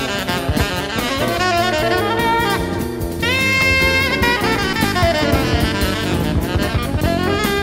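Jazz group playing a fast, busy melodic line over drum kit, with one long held note about three seconds in.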